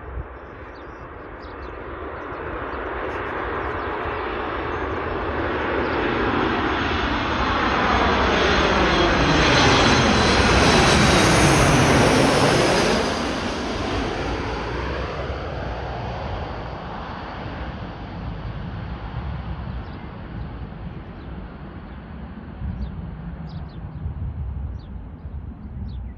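Airliner on landing approach passing low overhead: engine noise builds steadily, peaks loudest about ten to thirteen seconds in with a sweeping whoosh, then fades as it goes by.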